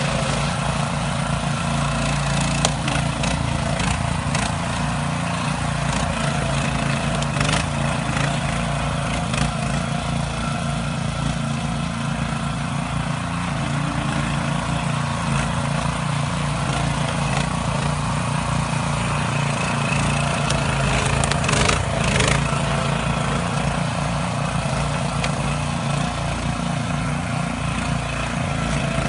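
Small petrol engines of Christmas tree cutting saws running steadily at speed while trees are cut, with a few sharp knocks and a brief louder stretch a little over two-thirds of the way in.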